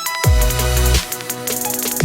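Background electronic dance music, a drum-and-bass style track with deep falling bass hits about every three quarters of a second under steady synth tones.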